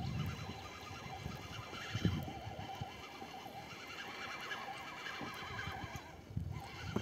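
A chorus of many frogs calling from the water, a dense, continuous mass of short croaking calls, with a couple of low thumps about two seconds in and near the end.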